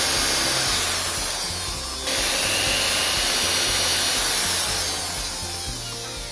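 A tool abrading thin stainless steel, a steady harsh scraping hiss that stops and starts again abruptly about two seconds in, over background music.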